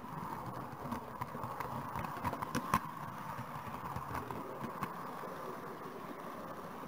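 Model train rolling along the layout track, heard from a small camera riding on the train: a steady running hum with sharp clicks as the wheels cross rail joints and points, most of them between about one and three seconds in and a few more a little later.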